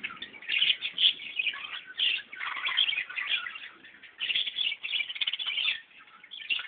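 Many small birds chirping together in dense, overlapping bursts, with a brief lull near the end.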